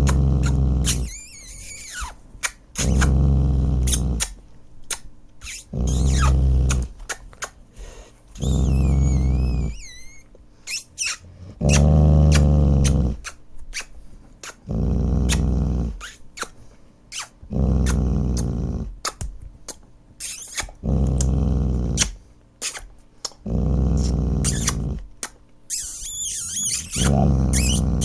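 Dog growling in long, low growls repeated about every two and a half seconds, with a few brief high squeaky whines between them.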